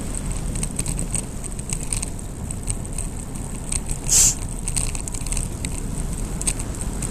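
Wind rumbling over an action camera on a bicycle speeding downhill, with road noise and scattered rattling clicks from the bike on rough tarmac. A short, louder hiss about four seconds in.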